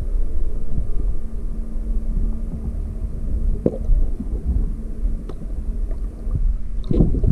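Low, muffled rumble and gurgle of water against a camera held underwater, with a faint steady hum and a few light ticks. Near the end it grows louder and busier as the camera breaks the surface.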